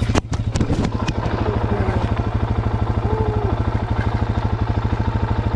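Suzuki DR-Z400's single-cylinder four-stroke engine idling steadily, with a quick clatter of knocks in the first second as the camera falls over.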